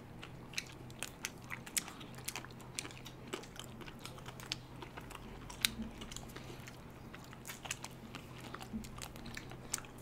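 Quiet eating sounds of people biting chocolate-coated ice cream bars: irregular sharp clicks and small crunches of bites, chewing and lip smacks, with a few louder bites about two and five and a half seconds in.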